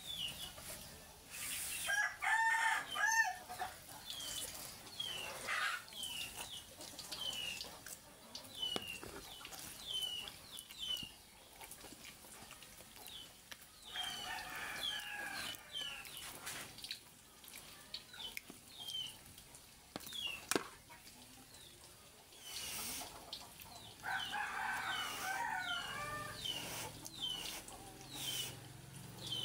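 Chickens calling: short high falling chirps repeating one or two times a second, with louder bouts of clucking or crowing about two seconds in, midway through, and again near the end.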